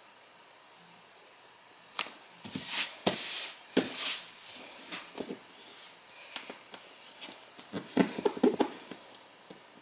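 Hands handling and smoothing a printed paper sheet laid on textured cardstock over a cutting mat: paper rustling and sliding, with small taps and clicks, starting about two seconds in.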